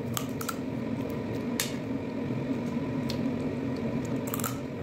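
Cooked crab shell being cracked and picked apart with fingers and teeth, with wet chewing; a handful of sharp cracks come at uneven intervals.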